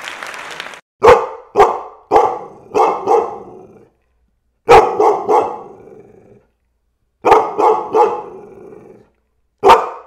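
A dog barking in runs of three to five barks with short silences between the runs. Each bark trails off briefly. A steady rushing noise stops just before the first bark.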